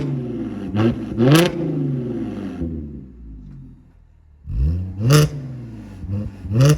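Audi S4 B8's supercharged 3.0 V6 revved in sharp throttle blips through a stainless aftermarket exhaust with X-pipe and mid-muffler delete. Two quick blips come about a second in, the engine falls back toward idle, and two more blips come near the end.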